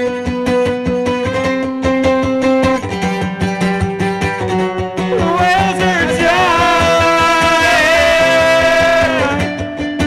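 Background music: fast picked guitar notes, with a held, wavering melody line over it from about halfway through until near the end.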